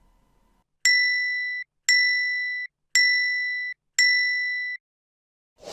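Four identical electronic chime dings, about one a second, each struck sharply, held briefly, then cut off. This is a sound effect in an animated learning activity.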